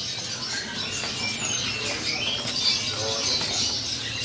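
Caged songbirds at a bird-market kiosk giving short, scattered chirps and whistles over a steady background hubbub.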